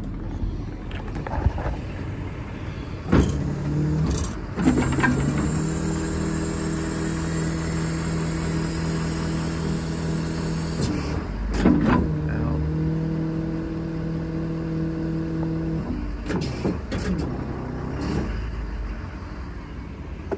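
Hydraulic wheel-lift boom of a Jerr-Dan self-loader tow body being worked, with the 2016 Ford F-350's 6.7 Power Stroke diesel running. The hydraulics start with a clunk about 3 seconds in, then hold a steady pitched hum that dips and shifts each time the controls are moved, around 5 and 12 seconds in. Near the end come a few short knocks and pitch changes.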